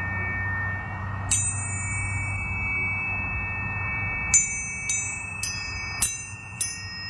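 Planetary tuning forks ringing with steady high tones, struck again once about a second in and then five times in quick succession over the second half, each strike a sharp bright ting whose highest ring fades quickly.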